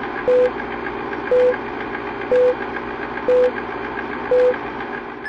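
Old film-leader countdown sound effect: a film projector's steady clattering run with a fast regular ticking, and a short beep once a second, five beeps in all, one for each number from five down to one.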